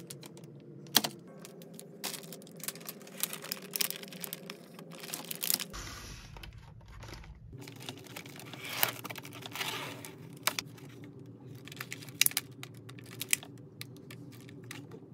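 Plastic food packaging being handled: rustling, crinkling and scattered sharp clicks as packets are moved and a clear plastic egg carton is opened.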